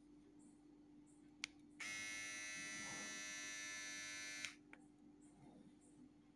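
Xiaomi Mi beard trimmer switched on with a click of its power button, its motor and blade buzzing steadily for under three seconds, then switched off with another click.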